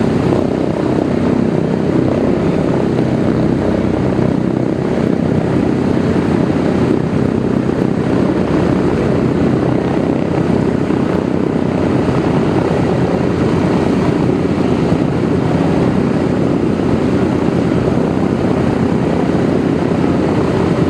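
A Douglas DC-3's two Pratt & Whitney R-1830-92 Twin Wasp radial engines running steadily, with a deep, even propeller drone.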